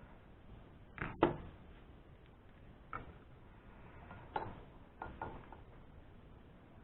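Light knocks and clicks of metal parts and tools being handled on a mini lathe: about six short hits, the loudest a pair about a second in.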